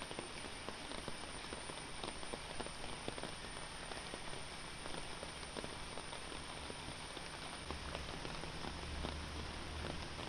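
Steady rain falling on floodwater and foliage, a dense hiss dotted with many small drop hits. A low rumble joins about eight seconds in.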